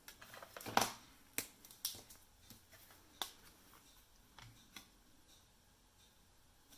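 A clear plastic set square being set down and shifted on the work surface, making scattered light taps and clicks. The strongest tap comes just under a second in.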